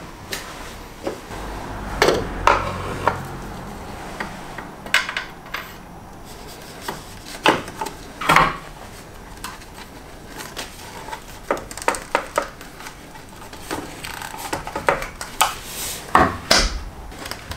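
Dipstick tube being pushed and worked down into the O-ring hole in the top of the engine sump: irregular clicks, knocks and rubbing as it scrapes past the engine parts.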